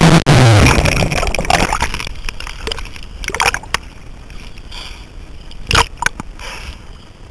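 Surf water sloshing and splashing over a camera held at the surface: a loud muffled underwater rush as it goes under at the start, then a choppy wash with sharp splashes about three and a half and six seconds in.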